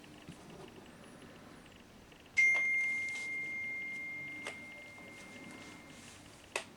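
A single bell-like chime struck about two and a half seconds in, one clear tone that rings on and slowly fades over about three seconds, followed by two short clicks.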